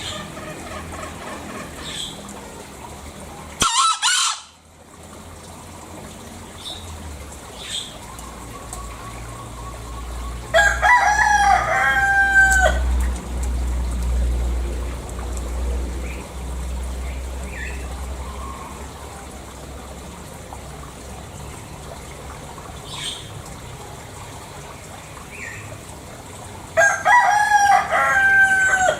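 Green junglefowl crowing: two loud, hoarse crows of about two seconds each, one about ten seconds in and one near the end, with a shorter sharp call a few seconds in.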